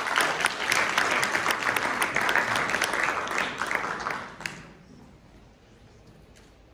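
Audience applauding in a hall, a dense patter of many hands clapping that dies away about four and a half seconds in.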